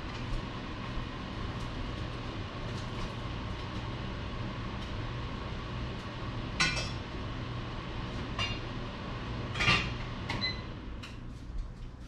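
Steady low outdoor hum with a few short, sharp clinks. The two loudest come a little past the middle and near the end.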